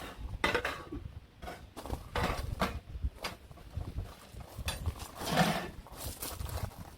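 A run of irregular knocks and clatter, loudest a little past the middle, over a steady low rumble.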